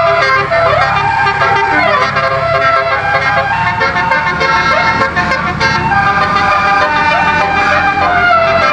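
A 12-trumpet Basuri telolet air horn set playing a MIDI-driven melody: several horn tones sound together in held notes, joined by sliding swoops up and down in pitch. A steady low hum runs underneath.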